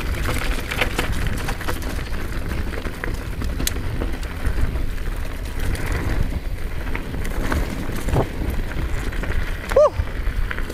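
Mountain bike rolling over a dirt and gravel trail: tyre noise on the dirt with frequent clicks and rattles from the bike over bumps, over a steady rumble of wind on the microphone. A brief squeak sounds near the end.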